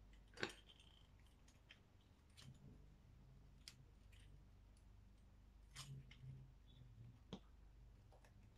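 Faint, scattered clicks and clacks of a collapsible ring-light stand being handled and unfolded, its joints, clamps and legs knocking; one sharper click about half a second in.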